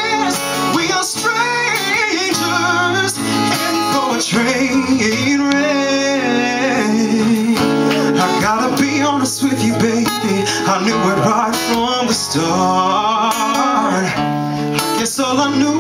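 Acoustic guitar strummed under a male voice singing, the voice wavering in pitch on held notes.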